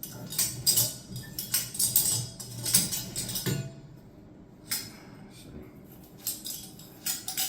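Copper pipe and fittings clinking and rattling as they are handled, a quick run of metallic clicks for the first few seconds, then a few scattered clinks.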